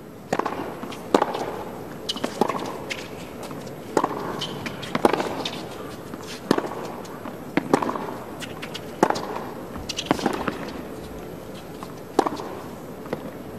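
A tennis rally: racket strings striking the ball about ten times, one sharp crack every second or so, over a steady low background noise.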